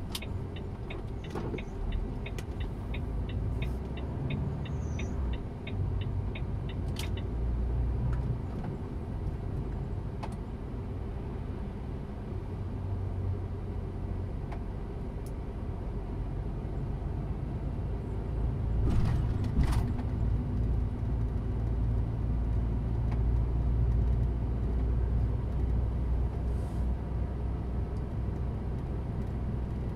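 Engine and road rumble heard from inside a slowly moving truck cab. A fast, regular ticking runs through the first seven seconds or so. A brief louder hiss comes about 19 seconds in.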